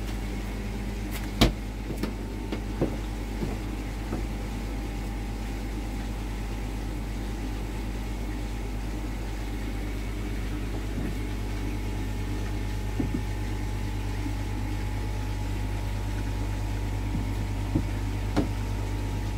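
Steady low electric hum of running machinery, with a few sharp knocks, the loudest about one and a half seconds in.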